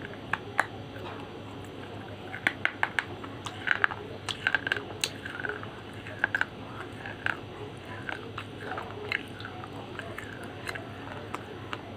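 Crisp bites into a piece of slate pencil, followed by crunching and chewing of the hard, chalky pieces in the mouth. There is a quick run of sharp crunches a few seconds in, then slower, scattered crunching.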